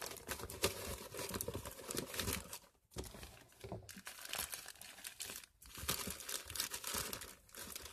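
Wrappers of adhesive bandages and other first-aid packets crinkling as they are handled and rummaged through, stopping briefly twice.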